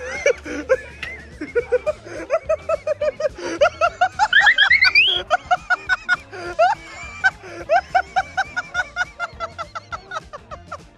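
Background music with laughing, made of quick repeated short notes and a rising glide about four to five seconds in.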